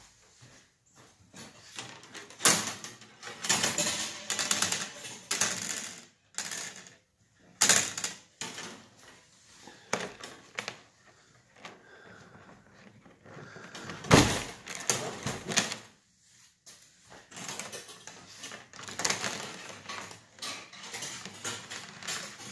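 Hands working on a plastic kayak deck, with irregular scraping, rustling and handling noise as 1/4-inch plastic irrigation tubing and its pull wire are drawn through a hole in the hull. A sharp knock about 14 seconds in is the loudest sound.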